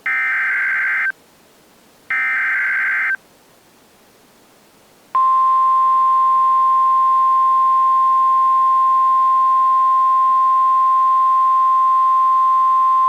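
The last two screeching digital data bursts of an Emergency Alert System SAME header, each about a second long and a second apart. About five seconds in, the steady single-pitch 1050 Hz NOAA Weather Radio warning alarm tone starts, signalling an imminent tornado warning message.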